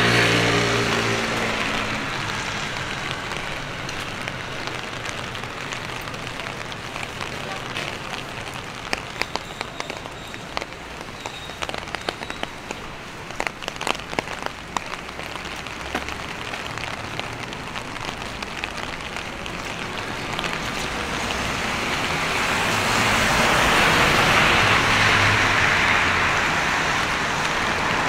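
Steady rain falling on the street, with a cluster of sharp drip ticks around the middle. Near the end, a vehicle's tyres hiss past on the wet road, swelling and then easing.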